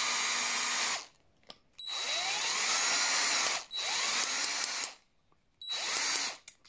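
Cordless drill motor spinning a rivet drill adapter in three short runs. Each run starts with a whine that rises in pitch and then holds steady. The first stops about a second in, the longest runs from about two seconds to five, and a short burst comes near the end.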